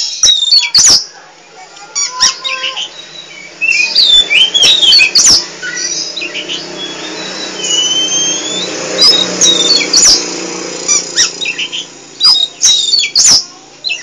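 Caged oriental magpie-robin (kacer poci) calling non-stop: loud, sharp, harsh notes and quick chattering phrases, with a few longer whistles in the middle that slide down and then up.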